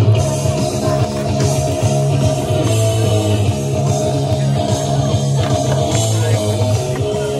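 Rock music with guitar, playing steadily with a bass line that moves every second or so.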